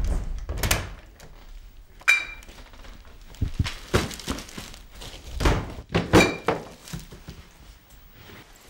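A series of separate knocks and thuds in a small room, two of them with a short ringing click, as a door is opened and full plastic shopping bags are set down on a table.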